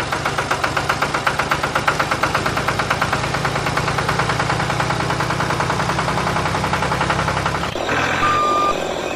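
Tractor engine chugging in an even rhythm of about four to five pulses a second; near the end the sound changes and a steady reversing-style beep sounds.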